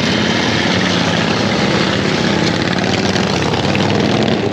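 Motorcycle engine running steadily at low speed, an even drone with no revving.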